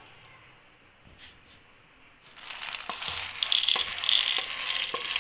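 Roasted gram (pottukadalai) pouring out of a steel bowl into a stainless steel mixer-grinder jar, pushed along by a wooden spatula. A dense rattle of grains hitting metal starts about halfway through, with occasional sharp clicks.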